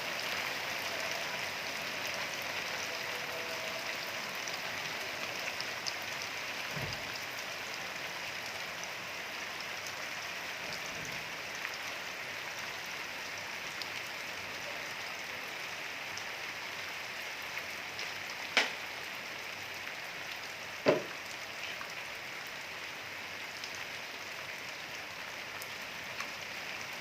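Steady rain falling and pattering on surfaces. Late on, two sharp taps a couple of seconds apart stand out above it.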